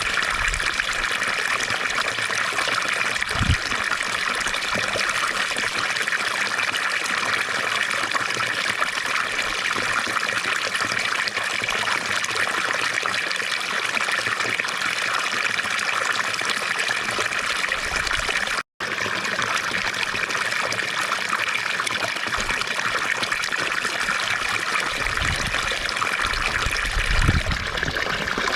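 Water from a fountain splashing and trickling steadily. The sound cuts out for an instant about two-thirds of the way through.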